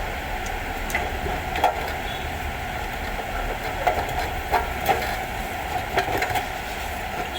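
Scattered light clicks and knocks, about seven in all, over a steady background noise.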